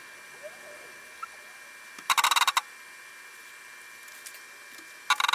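Two short bursts of rapid mechanical clicking from a small CNC milling machine while a jig is being levelled and centred with a dial test indicator: one about two seconds in, and a shorter one near the end. Underneath is a faint steady electrical whine.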